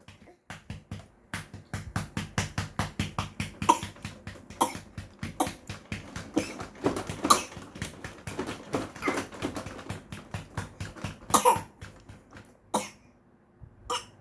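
A baby coughing repeatedly in short bursts, over background music with a quick, ticking beat.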